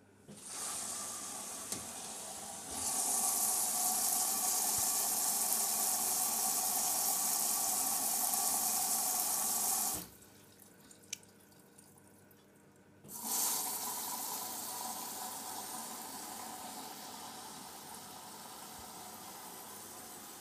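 Hoover Dynamic 8 Pulse washing machine filling with water at the start of a wool wash: water running in through the inlet valve and detergent drawer. The flow stops about ten seconds in, starts again about three seconds later, and then slowly eases.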